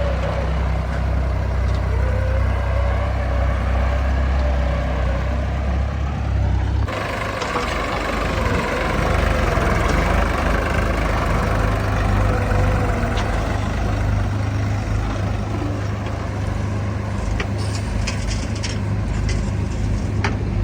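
Heavy diesel machinery running steadily, with a wavering whine over the engine. The sound changes abruptly about seven seconds in, as at a cut, and a few sharp clicks come near the end.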